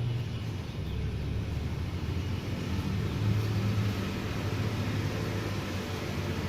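Steady rain hiss over a continuous low rumble of road traffic.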